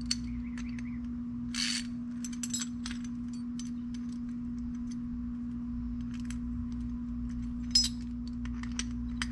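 Scattered small metal clicks and scrapes of an Allen key working a bolt and nut on the thrust-vector hardware, a few sharper clinks among them, over a steady low hum.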